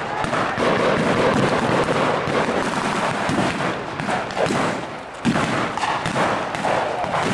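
Battle re-enactment gunfire: many scattered blank shots crackling at a distance, with a louder sudden bang about five seconds in.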